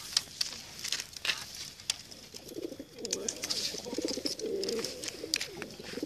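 Domestic pigeon cooing, a low rolling, pulsing coo that starts about two seconds in and keeps going. Scattered sharp taps and clicks come before it.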